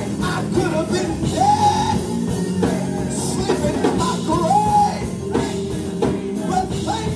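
Live gospel choir song with band accompaniment: a singer's held, sliding notes over steady sustained chords.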